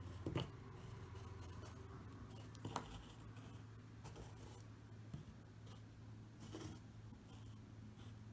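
Faint light taps and scrapes of miniature figures on round bases being picked up and set down on a tabletop mat, four small knocks spread out over a steady low hum.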